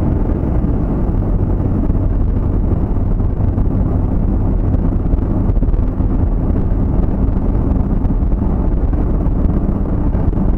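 Steady low rumble of road and engine noise inside a moving vehicle's cabin, unchanging throughout.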